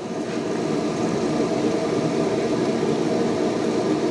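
Recteq Bull 700 pellet grill running on its low setting just after start-up: a steady mechanical hum from its fan motor, with several held tones.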